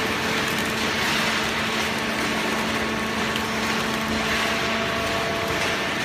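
Hydraulic horizontal paper baler running: a steady mechanical hum with a constant whine over broad machine noise.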